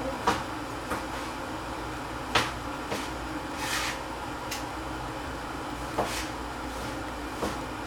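Knife knocking on a cutting board while a tomato is cut: about eight sharp, irregular knocks with a few short swishes between them, over a steady low hum.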